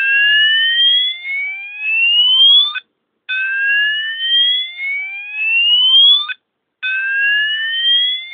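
Fulleon Roshni low-profile fire alarm sounder sounding its slow whoop tone: a loud rising whoop about three seconds long, repeated after a short break. Three whoops, the third still rising at the end.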